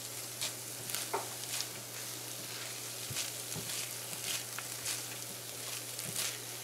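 Sweet zarda rice sizzling gently in a nonstick frying pan while a silicone spatula stirs it, with scattered soft scrapes and clicks as the spatula moves across the pan. A steady low hum runs underneath.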